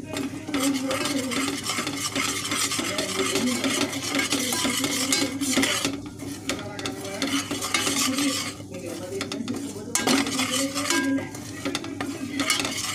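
A steel spoon stirring and scraping around a steel pot of chilli-and-turmeric masala, which sizzles as it fries in sesame oil over medium heat.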